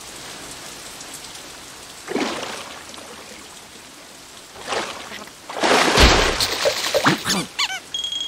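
Cartoon rain falling steadily, with louder noisy bursts about two, five and six seconds in, the one at six seconds with a low thump. Quick sliding tones follow near the end.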